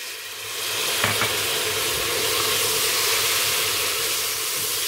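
Onion and spice masala in hot oil in a steel pot sizzling as a splash of water goes in. The hiss swells about half a second in and holds steady while a wooden spatula stirs it, with one knock about a second in.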